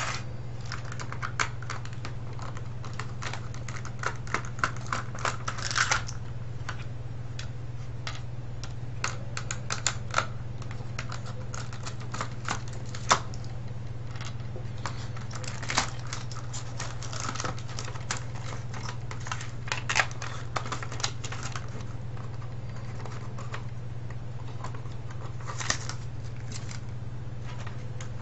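Irregular clicks and clacks of the plastic parts of a vTech cordless phone being handled and pried apart, with short scraping sounds among them, over a steady low hum.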